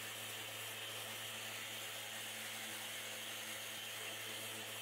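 Festool orbital sander with 120-grit paper on a sponge pad, running steadily against bare teak: a constant motor hum with a hiss of abrasive over it.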